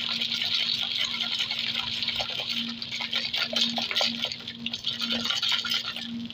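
Cocktail shaker shaken hard, its contents sloshing and rattling with many quick clicks; the shaking stops abruptly at the very end.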